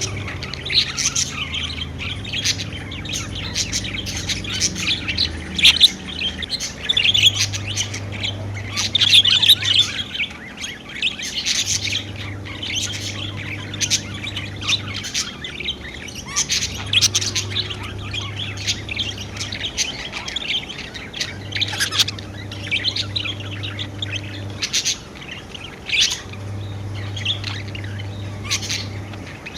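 A flock of pet budgerigars chirping and warbling busily, with frequent sharp squawks mixed into the steady chatter.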